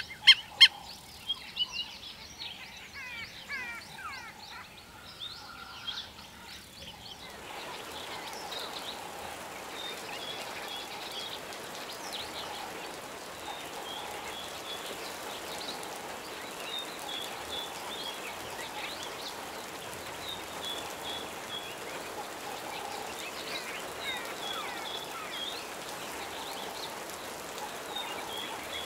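Wattled lapwing calling, a fast run of sharp repeated notes for the first several seconds. After that, a steady outdoor hiss with short groups of high bird notes every few seconds.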